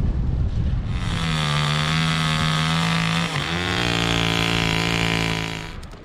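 An engine runs at a steady pitch, starting about a second in. Its pitch dips briefly in the middle and it cuts off just before the end.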